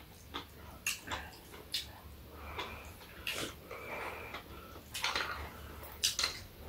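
Eating sounds at the table: slurping of seafood soup broth from a spoon and chewing, with sharp clicks of chopsticks and a metal spoon against the bowls.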